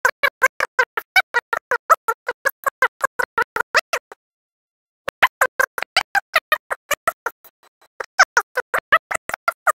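Background music made of fast, evenly spaced staccato clicks with a pitched ring, about eight a second. It stops dead for about a second around four seconds in, then resumes.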